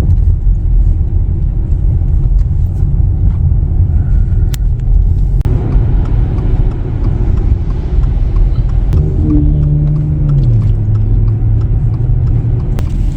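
Car on the move: a steady low rumble of engine and road noise. About ten seconds in, a humming engine note drops in pitch and then holds lower.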